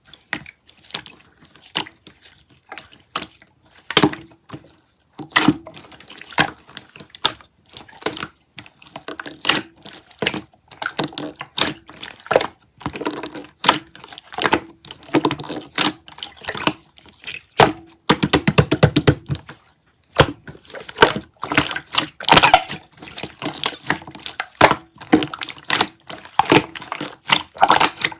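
Rapid, irregular taps and clicks, dense throughout, with an even faster run of clicks about eighteen seconds in.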